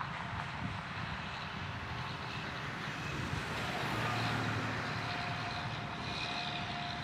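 Heavy trucks passing on a highway, one hauling a sugarcane trailer: a steady rush of engine and tyre noise that swells a little around the middle, with a faint steady whine in the second half.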